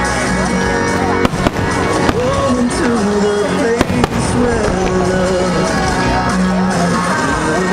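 Music with a gliding melody plays steadily while aerial firework shells go off over it in a handful of sharp bangs, the sharpest about four seconds in.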